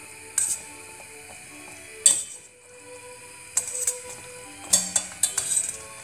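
Metal tongs clacking against a stainless-steel pan and against each other as pastries are turned in thick fig syrup: a few sharp clicks, bunched together near the end. Soft background music plays underneath.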